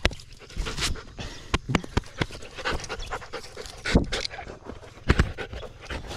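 Border collie panting close up as it jumps up against a person, with sharp bumps and rustles of paws and fur, the loudest about four and five seconds in.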